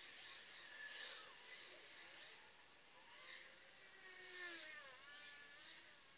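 Faint cabin noise from a vehicle on the move: a soft hiss that swells and fades, with a faint whine that drops in pitch and then rises again about four seconds in.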